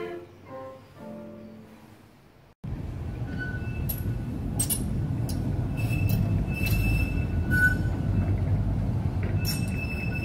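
Music with singing fades out over the first two seconds. After a sudden cut, an articulated electric tram, a former Rotterdam RET car, rolls slowly past on curved track: a steady low rumble of wheels on rails with short clinks and repeated high wheel squeals, one held near the end.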